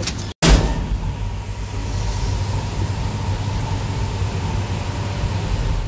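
Passenger elevator cabin running: a steady low hum with a faint steady tone, after a brief louder noise about half a second in.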